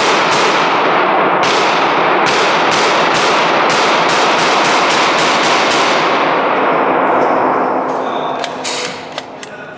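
Rapid gunfire echoing in an indoor shooting range: a quick string of shots, about three a second, whose echoes run together into a continuous wash. It eases off after about eight seconds, with a few last separate shots.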